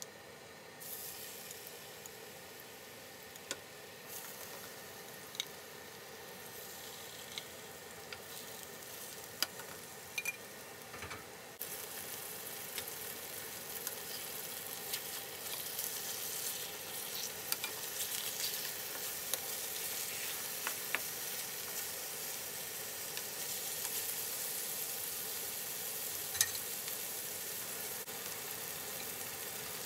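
Raw chicken breasts sizzling in hot oil in a frying pan. The sizzle starts about a second in and gets louder about twelve seconds in, with scattered small pops and clicks.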